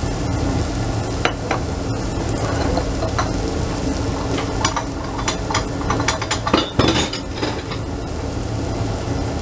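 Onion, seasoning and red pepper paste frying in olive oil in a stainless saucepan: a steady sizzle, with a run of short sharp clicks in the middle, over a low steady hum.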